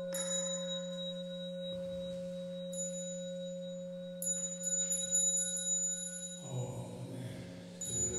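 Handheld temple bell struck once, its single pitched tone ringing on steadily and fading slowly for about six seconds. Chanting voices start again near the end.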